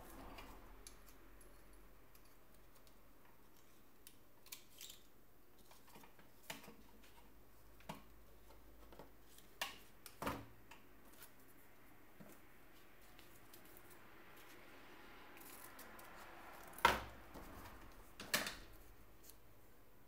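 Light clicks and taps of small repair tools being picked up and handled on a workbench, scattered through, with two louder sharp clicks near the end.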